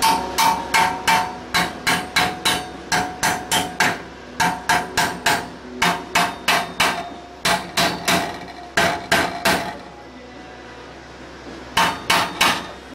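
A hammer pounding repeatedly on a steel RX-8 steering knuckle and hub clamped in a bench vise, about three blows a second, each leaving a metallic ring, to knock the hub loose from the old knuckle. The blows stop for about two seconds, then three more follow near the end.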